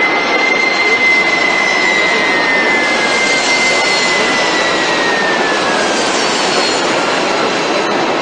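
Jet airliner engines of an Air Canada Boeing 767 during landing: a loud, steady rush with a high whine that begins to fall slowly in pitch a few seconds in.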